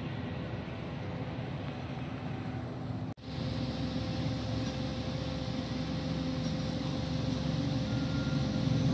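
Steady low rumble of background noise with a faint steady hum, broken off for an instant about three seconds in.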